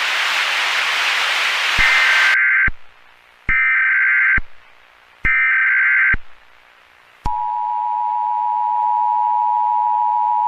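A hiss of static that cuts off about two seconds in, then three short Emergency Alert System data bursts (the SAME header), followed from about seven seconds in by the steady EAS attention tone.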